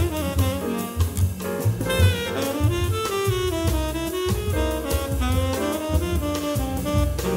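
Small-group jazz: a tenor saxophone plays a flowing melodic line, with bends between notes, over a moving bass line and a drum kit with cymbals.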